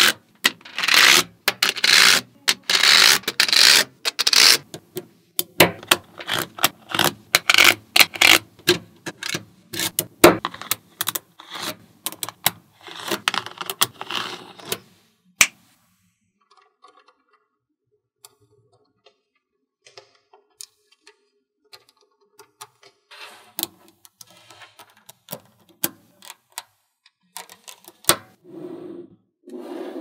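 Magnetic balls clicking and rattling against each other as they are snapped together and shuffled by hand. There is dense clattering at the start and again near the middle, then a quiet spell of several seconds, then scattered single clicks.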